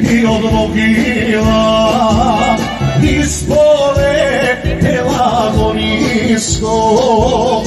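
Live folk band music: accordion and a wavering, ornamented lead melody over a steady, repeating bass beat.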